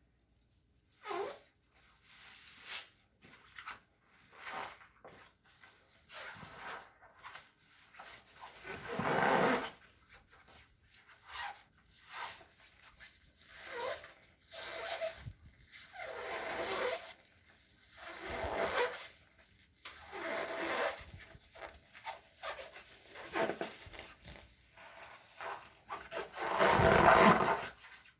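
Wet scrubbing in repeated squeaky, squishy strokes, one every second or two, some with a drawn-out squeak; the loudest stroke comes near the end.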